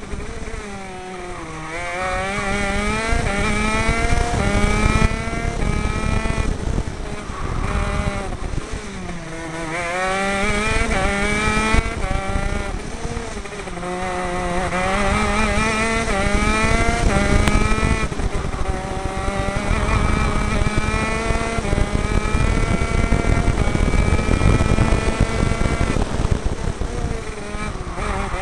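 125cc two-stroke KZ shifter kart engine on a CRG KZ10, heard onboard at racing speed. The revs climb in steps as it shifts up through the gearbox, then drop off under braking for corners, near the start and again about 9 and 13 seconds in.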